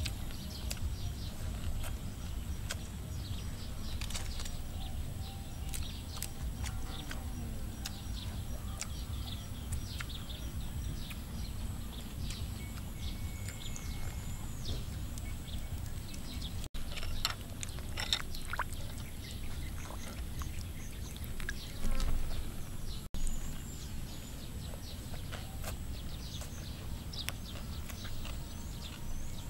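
Outdoor ambience: a steady low rumble in the background, with birds chirping now and then in short, high, falling calls.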